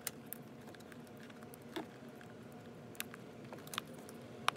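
A rubber door wiring boot being worked by hand back over a plastic door-jamb connector. It makes a handful of light clicks and taps with soft rubbing, the sharpest click near the end, over a faint steady hum.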